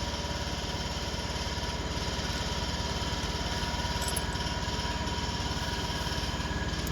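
An engine or motor running steadily in the background with an even, regular low throb, and a faint steady whine that stops near the end.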